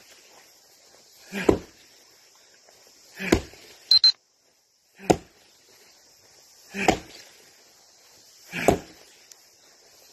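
Axe chopping wood: five sharp blows about one every two seconds. A short high beep and a brief dropout in the sound come near the middle.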